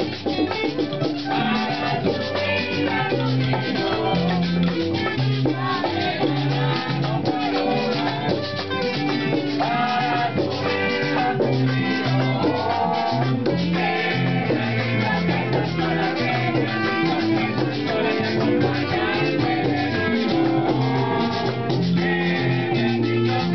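Live Puerto Rican parranda music: a group singing a Christmas song, with shaken hand percussion keeping a steady Latin beat underneath.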